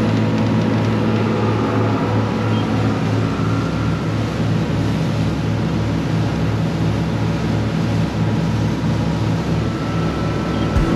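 Motor cruiser's inboard engine running steadily under way, heard from inside the wheelhouse: a steady low drone with a light regular throb, over the rush of the hull through the water.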